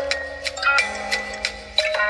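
A mobile phone ringtone playing: a quick melody of short struck notes over a low held note that steps down about a second in.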